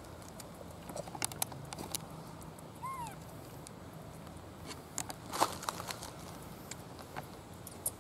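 Outdoor ambience with a steady low background hiss, scattered light clicks and rustles, the loudest about five and a half seconds in, and a single short chirp that rises and falls about three seconds in.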